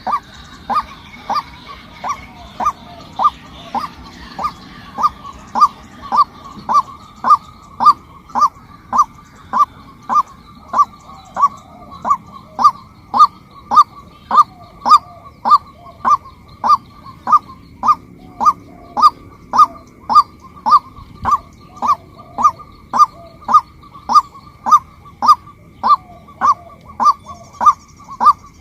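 Female white-breasted waterhen calling: a monotonous run of short, loud "kwak" notes repeated evenly, a little under two a second.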